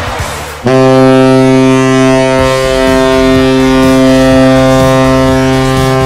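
Vegas Golden Knights goal horn sounding one long, steady blast, cutting in sharply about half a second in.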